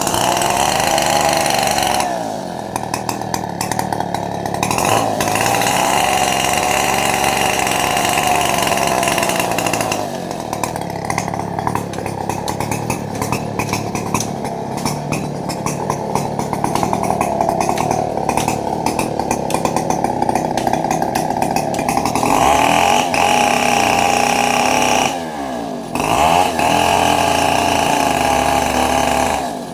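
Chainsaw running at high revs while cutting tree limbs, its engine note wavering and sagging under load and recovering. Near the end it briefly drops off, then picks up again.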